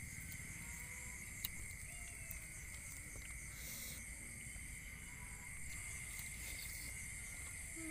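Faint, steady high drone of night insects, with a few soft, short crunches of crispy fried banana-tree strips being chewed.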